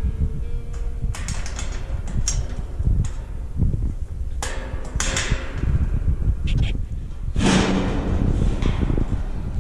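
Metal bird cage being handled: scattered clicks and rattles of its steel doors and bars, then a longer scraping slide of a metal part about three quarters of the way in, over a low rumble of handling noise.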